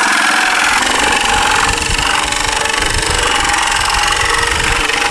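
Jigsaw running steadily as it cuts through a plastic 5-gallon bucket, stopping right at the end.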